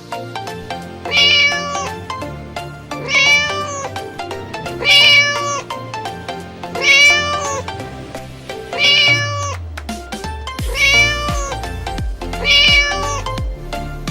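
Domestic cat meowing, seven alike meows at even intervals about two seconds apart, over children's background music that picks up a low thumping beat about ten seconds in.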